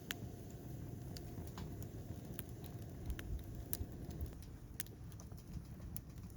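Wood fire crackling in a folding stainless-steel fire pit: sharp, irregular pops and snaps over a low, steady rumble.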